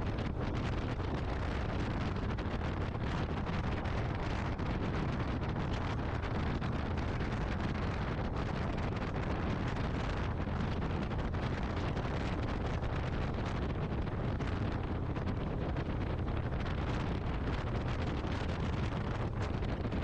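Steady wind rush buffeting the microphone of a camera riding on a moving motorcycle, with road and vehicle noise mixed in.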